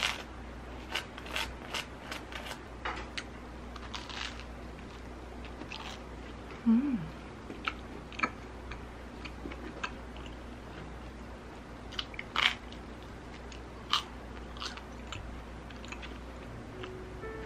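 Crisp toast crunching under bites and chewing, in short sharp crunches scattered irregularly, with a small spoon scraping jam across the toast near the start.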